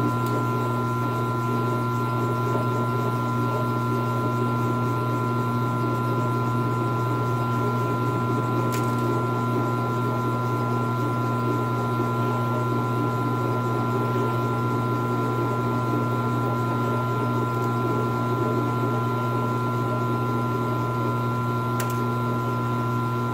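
Milling machine running steadily with a low hum, its twist drill boring a 3/4-inch centre hole through a washer. Two faint ticks, about nine seconds in and near the end.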